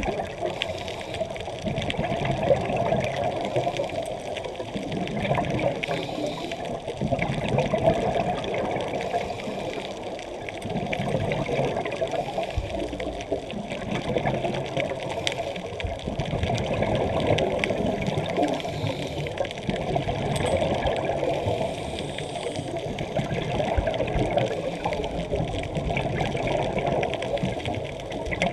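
Scuba regulator exhaust bubbles and muffled underwater rumble, swelling and fading every few seconds with a diver's breathing.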